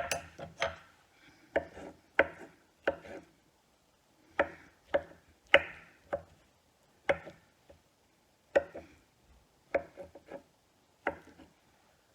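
A kitchen knife chopping on a cutting board: sharp, separate knocks at an uneven pace of about one or two a second.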